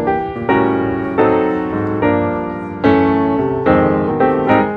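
Background music: piano notes struck about every half second, each ringing and dying away, in a slow, gentle melody.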